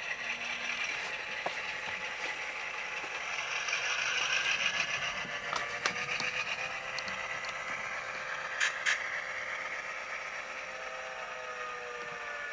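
Model diesel locomotive's sound decoder playing an EMD diesel engine through its small onboard speaker, its pitch drifting up and later down, with a few sharp clicks from the model's mechanism.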